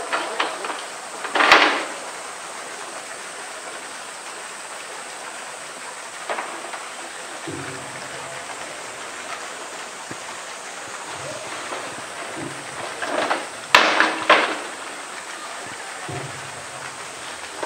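Hollow bamboo tube knocking and scraping on concrete as a polar bear pushes and bites at it: a sharp clatter about a second and a half in, then a cluster of knocks about three-quarters of the way through, over steady outdoor background noise.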